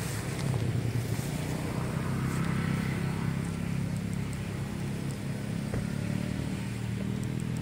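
A motor vehicle's engine running steadily at a low, even pitch.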